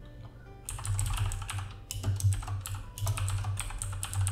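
Typing on a computer keyboard: quick runs of keystroke clicks in short bursts, starting under a second in.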